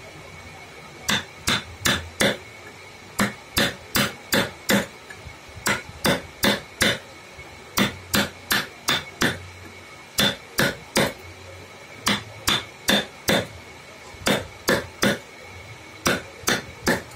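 Hammer tapping a carving chisel into wood, in quick runs of three to five sharp taps with short pauses between the runs.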